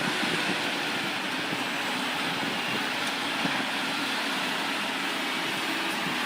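Heavy construction machinery running steadily: a continuous engine noise with a broad hiss and no breaks or impacts.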